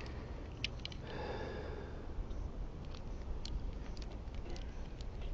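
A few faint clicks and a soft rustle of hands working a network cable and its connector end, with a breath or sniff about a second in.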